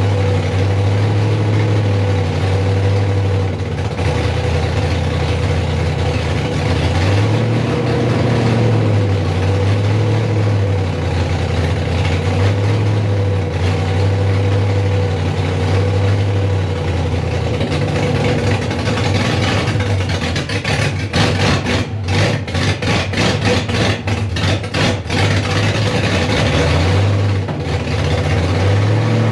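Freshly rebuilt GM 5.3-litre V8 running on its first start, its speed hunting up and down instead of settling: it won't hold an idle and has a heavy lope. About 20 seconds in it stutters roughly for several seconds, then picks back up.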